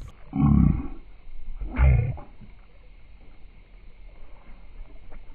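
Two deep, drawn-out roars about a second apart, the anglers' excited shouts slowed down to a low growl, over a quieter steady background.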